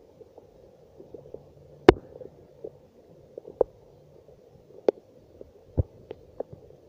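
Raindrops tapping irregularly on or right beside the phone, a few landing louder than the rest, over a faint steady hiss of rain.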